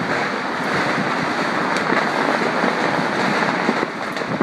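Countless distant fireworks and firecrackers going off across a city at once, their pops merging into a steady, dense crackling din with sharper cracks scattered through it.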